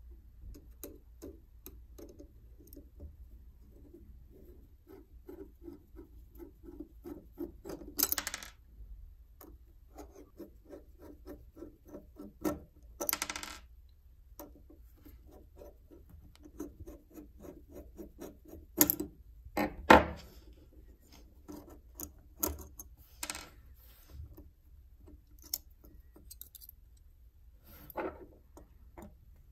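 A screwdriver working small screws out of a pencil sharpener's metal cutter housing: a run of light rapid ticks for the first several seconds, then a series of sharp metallic clinks as screws and small steel parts are handled and set down on a wooden workbench.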